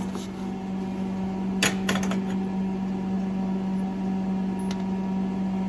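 Steady electrical hum, with a few sharp metallic clicks about one and a half to two seconds in as a wrench is put to a welded-up, stripped motor mount bolt.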